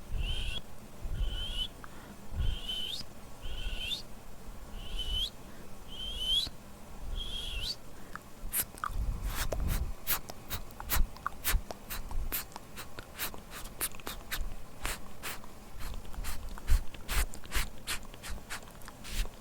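Close-miked ASMR mouth sounds: first a run of short, high, squeaky sounds, one about every three-quarters of a second, then from about eight seconds in a quick, irregular series of sharp wet mouth clicks and pops.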